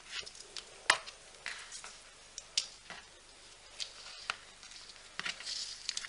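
Soft rustling of hemp cord being handled and pulled through a square knot on a cutting mat, with a few sharp little ticks, the loudest about a second in.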